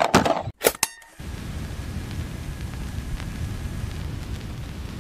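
A few short, sharp sounds, then from about a second in a steady, low rumbling noise with faint clinks: an edited-in intro sound effect.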